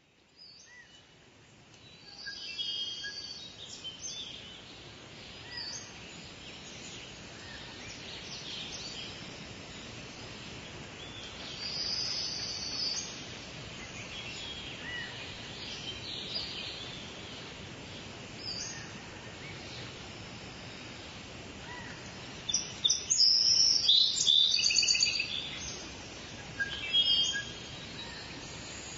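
Wild birds chirping and calling over a steady outdoor background hiss, with faint short chirps repeating every second or two. A burst of louder, high chattering calls comes about three-quarters of the way through.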